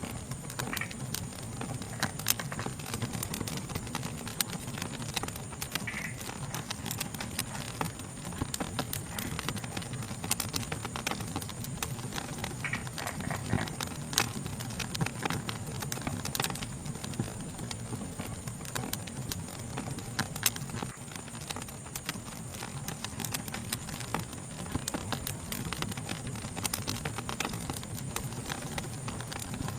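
Fire crackling with frequent irregular sharp pops, over a steady high-pitched chorus of night insects.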